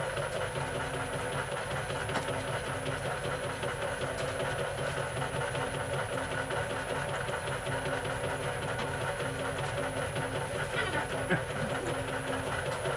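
Wire-stripping machine running steadily with a dense mechanical clatter, and a hum that pulses on and off about once a second as wire feeds through.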